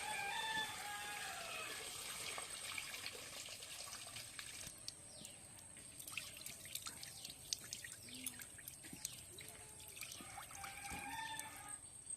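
Water pouring and trickling, then dripping in many small, quick drops from about five seconds in.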